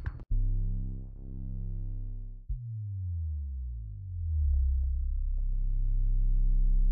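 Cinematic synthesizer loops being auditioned: a dark, low sustained pad drone, then a new low drone starting sharply about two and a half seconds in. It slides down slightly in pitch and slowly swells louder, with a few faint higher notes in the middle.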